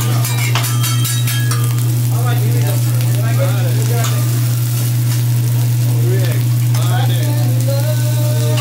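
Food sizzling on a hibachi teppanyaki griddle over a loud, steady low hum. A few sharp metallic clinks sound in the first second.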